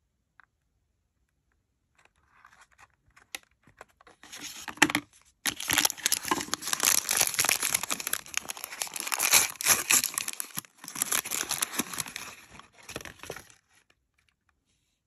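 Toy packaging torn open and paper wrapping crinkled by hand. It starts with light rustling about two seconds in, grows into steady loud crinkling and tearing with a short break around five seconds, and stops shortly before the end.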